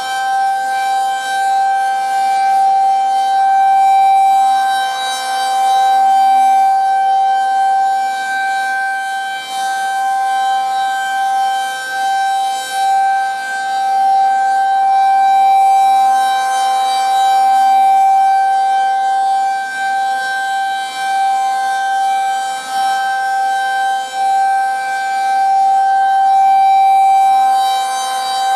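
Federal Signal 2001-SRN rotating warning siren sounding a steady single tone at full speed, growing louder and fading again about every twelve seconds as the rotating head sweeps past. It is sounding its test signal.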